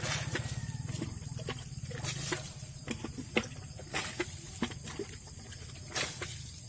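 Water thrown from a plastic mug splashing onto a motorcycle, about four dashes two seconds apart. Underneath is a low, fast-pulsing rumble that fades after the first couple of seconds.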